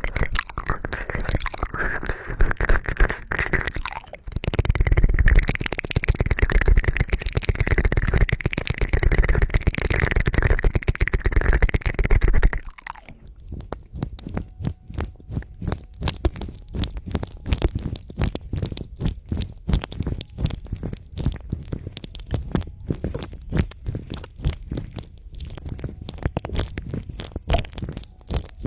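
Close-miked ASMR ear-cleaning sounds: dense scratching and rubbing right on the microphone, with a deep rumble, which stops abruptly about 13 seconds in. Then comes a fast, uneven stream of sharp crackling clicks.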